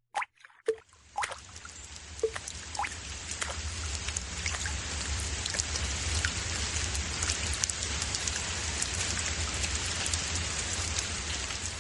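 Water sounds: a few separate drips or plops, then a dense, rain-like spatter of water that swells in over a few seconds and holds steady over a low hum, easing slightly near the end.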